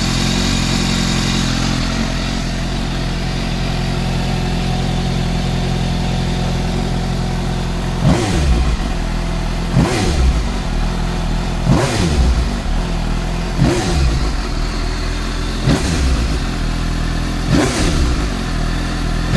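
Suzuki GSX-S750's inline-four engine idling steadily, then its throttle blipped about six times, roughly every two seconds, each rev rising quickly and falling back to idle.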